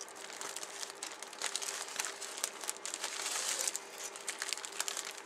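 Clear plastic bag around the model kit's plastic parts sprues crinkling as it is handled, a steady run of small crackles.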